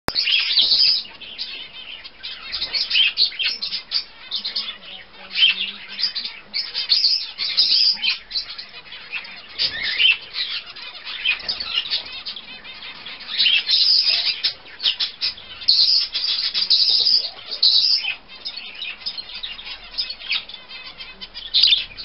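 Budgerigar chattering and chirping in fast runs of short, high calls with brief pauses between them.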